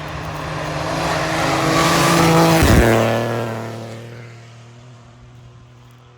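A car passing at speed: its engine note builds as it approaches, drops in pitch as it goes by a little under three seconds in, then fades away.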